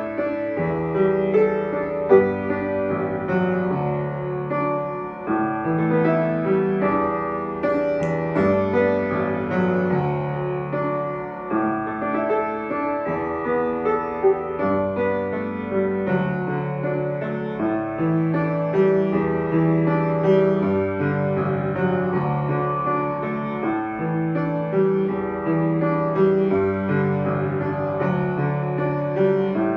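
Upright piano playing an instrumental passage of chords and melody that shift every second or two, with no singing.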